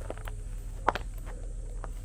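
Footsteps of a hiker walking on a dirt trail, with a sharp tap about a second in, over a low steady rumble.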